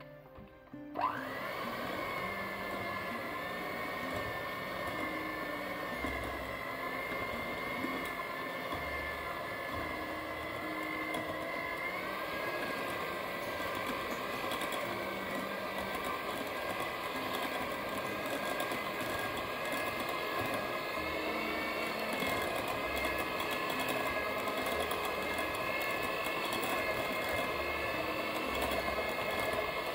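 Moulinex electric hand mixer switching on about a second in and running steadily, its twin beaters whipping mascarpone cheese and powdered sugar in a glass bowl. The motor gives a steady whine whose pitch shifts slightly about twelve seconds in.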